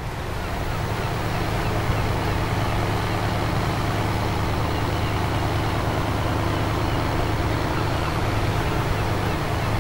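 A boat's engine running steadily with a low drone, over an even hiss of wind and water, fading in over the first second.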